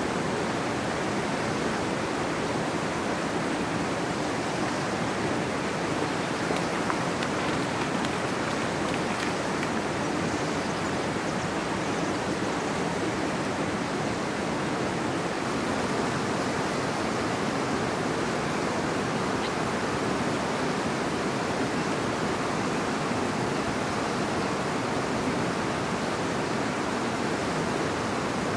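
River water rushing steadily, an even wash of noise from fast-flowing water.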